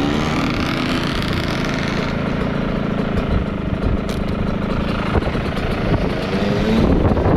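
125cc two-stroke dirt bike engine running and revving, its pitch climbing over the first couple of seconds and again near the end.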